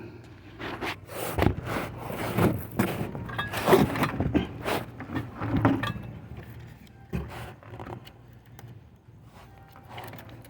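Irregular knocks, scrapes and clatters of a heavy spare tire being handled and levered with a piece of wood under a van, busiest in the first six seconds and then sparser.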